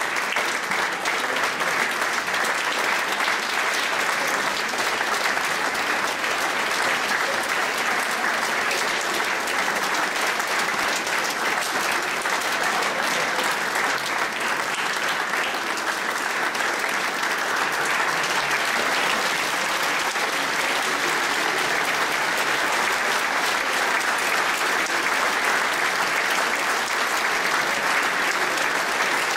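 Audience applauding steadily, without a break.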